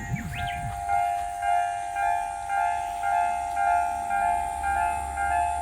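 Japanese railway level-crossing alarm ringing its two-tone electronic bell, pulsing about twice a second. A low rumble comes in at about four and a half seconds.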